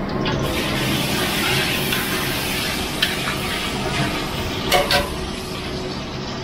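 Chopped aromatics dropped into hot oil in a large steel wok, sizzling as they are stirred with a metal ladle. A few light clinks of the ladle against the wok come about 3 and 5 seconds in, over a steady low hum.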